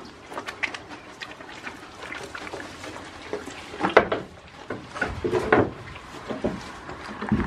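Goats feeding at a wooden pen: scattered crunching, knocks and rustling, with a louder noise about four seconds in and another about five and a half seconds in.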